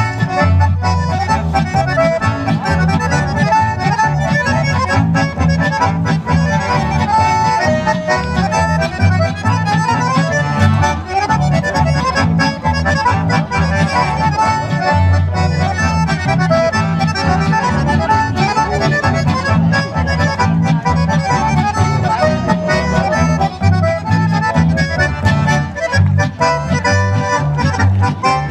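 Live folk band playing a tune: two accordions carry the melody over acoustic guitar and an upright double bass keeping a steady bass beat.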